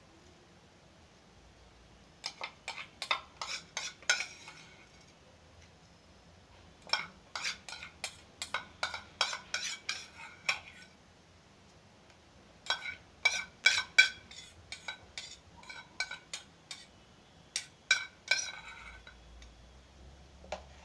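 A metal spoon clinking and scraping against the inside of an electric kettle while rice is tipped into hot milk and stirred, in three bouts of quick clinks.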